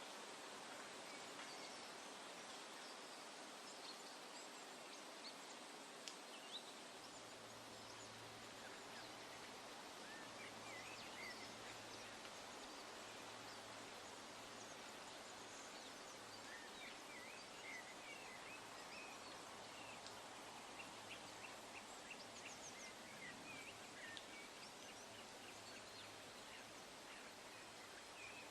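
Faint, scattered bird chirps over a steady woodland background hiss, with a faint low hum coming in about a quarter of the way through.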